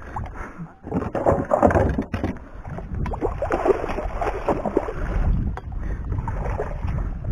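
A hooked traíra thrashing at the surface beside a kayak, the water splashing in irregular surges, loudest about a second in, with wind rumbling on the microphone.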